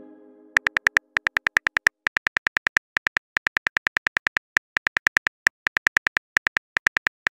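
Phone keyboard tap sounds: a rapid run of short, crisp clicks, several a second with brief pauses, as a text message is typed letter by letter.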